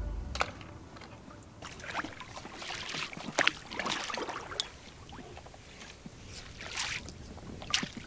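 Small choppy waves lapping and slapping irregularly against the hull of an inflatable boat.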